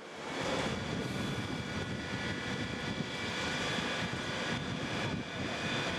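Steady drone of heavy engines running, with several thin, steady high whining tones over it.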